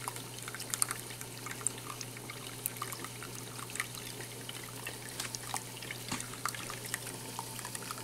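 Small tabletop rock fountain running: water trickling and dripping over its ledges into the basin, in many small irregular drips, over a steady low hum.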